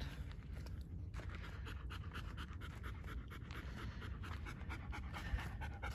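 German shepherd panting with quick, even breaths, mouth open and tongue out.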